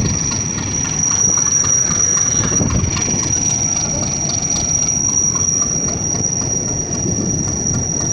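A train running at speed, heard from its roof: a dense, steady rumble of wheels on rails mixed with rushing noise. A thin, high, steady tone rides over it throughout.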